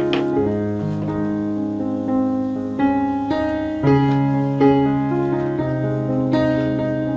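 Background music: piano or electric keyboard playing slow sustained chords, changing every second or so.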